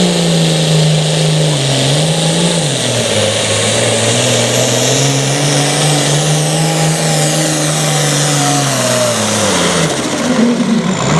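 Super Farm pulling tractor's turbocharged diesel engine running hard at high revs with a high turbo whine. The revs dip briefly about two and a half seconds in, then fall away near the end as the engine winds down.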